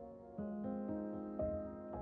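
Gentle background piano music, single notes sounding and ringing on, with a new note about half a second in and another near one and a half seconds.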